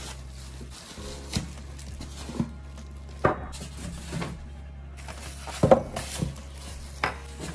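Foam packing inserts and plastic-wrapped parts of a new coffee machine being lifted out and set down on a wooden table: a run of irregular knocks and thumps, about six, with light rustling between them, over a steady low hum.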